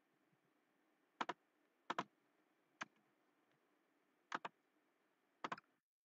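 Computer mouse clicking: five sharp clicks spaced roughly a second apart, most of them a quick pair of ticks, over a faint background hiss that stops abruptly near the end.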